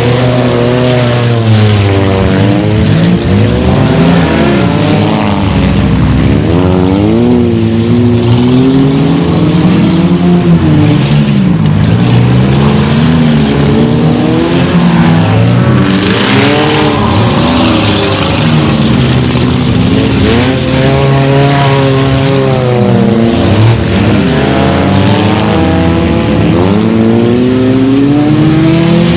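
Several stock-car engines racing around a dirt track, loud and overlapping, their pitch rising and falling again and again as the cars rev, lift and pass.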